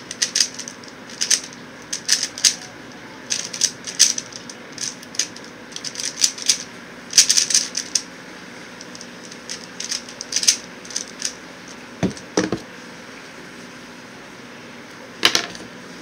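Plastic clicking and clacking of a QiYi X-Man Tornado V1 3x3 speedcube being turned fast in bursts during a timed solve. Two knocks about twelve seconds in as the solve ends, and another short rattle near the end.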